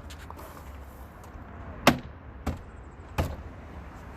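Three sharp knocks, a little over half a second apart, about two seconds in, as the F150's inside door panel is pressed and tapped back onto the door.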